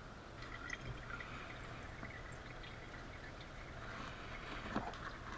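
Engine oil pouring in a steady stream from an opened Fumoto quick drain valve into a drain pan, a low, even splashing hiss. The sump is nearly empty, with the draining about done.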